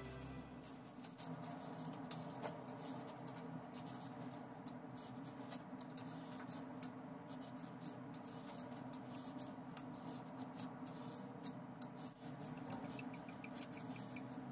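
A kitchen knife scraping and shaving the skin off a round green vegetable in short, irregular strokes: small scratchy rasps and clicks, over a faint steady hum.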